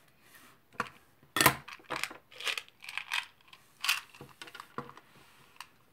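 Makeup items being handled: an irregular string of sharp clicks and clatters, the loudest about a second and a half in.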